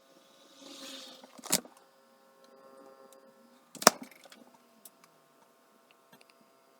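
Two sharp knocks, about a second and a half in and again about two and a half seconds later, the second the louder, followed by a few faint clicks. A steady electrical hum runs underneath.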